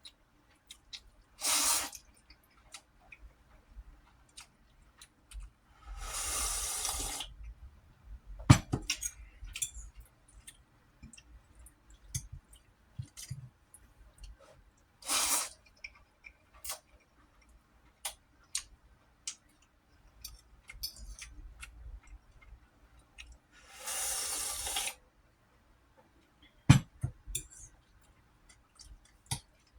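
Slurping ramen four times, the second and last slurps longer than the others, with small mouth clicks and light clinks of a utensil between them.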